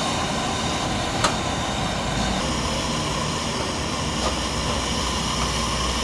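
Hand-held gas torch flame hissing steadily while it heats a copper pipe joint being sweat-soldered, with one sharp click about a second in.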